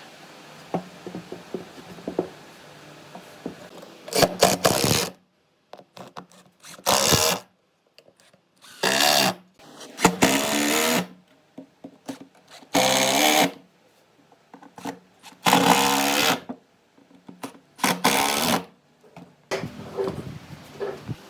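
A small power tool running in short bursts, about seven runs of roughly a second each with brief silences between. Before the first burst there is a faint steady hum with a few light ticks.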